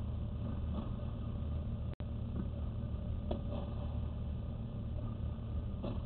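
Tennis balls being struck by rackets on an indoor clay court: short sharp pops a second or two apart, over a steady low machine hum. The audio cuts out for an instant about two seconds in.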